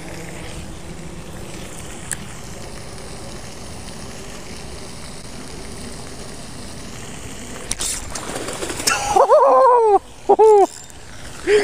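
Steady outdoor background noise, then a short sharp sound about eight seconds in, followed by two loud excited wordless whoops from an angler, each rising and falling in pitch.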